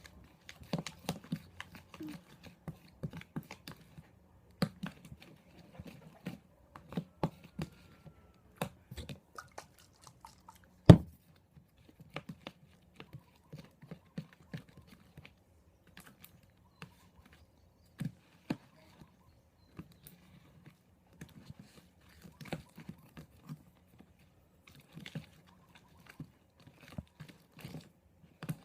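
Sticky, freshly activated glue slime being mixed and worked, giving irregular wet clicks and pops, the loudest about eleven seconds in.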